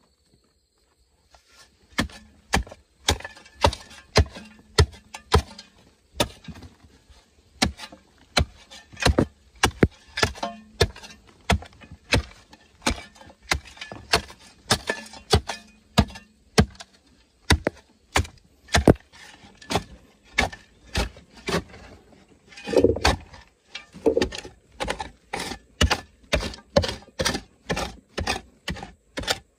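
Short-handled hoe chopping into hard clay soil, its metal blade striking in a steady rhythm of roughly two blows a second, starting about a second and a half in. A couple of heavier, deeper blows come about three quarters of the way through.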